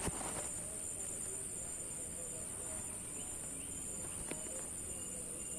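Steady high-pitched buzzing of insects, crickets or cicadas, running unbroken, with a brief knock or rustle at the very start.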